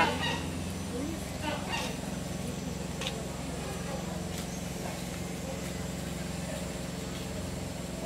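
A steady low mechanical hum, with faint background voices and a few light clicks.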